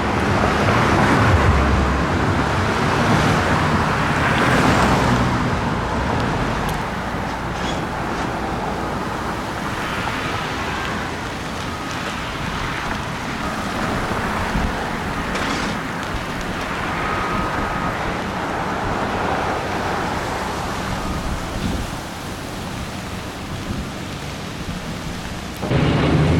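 Street traffic noise: a steady rush of passing cars, swelling and fading as vehicles go by.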